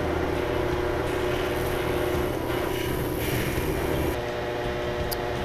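Cold-working lathe running with a steady motor hum and a grinding hiss as a glass cup's rim is worked on the wet orange polishing wheel. The hum eases slightly about four seconds in, and there is a single sharp tick near the end.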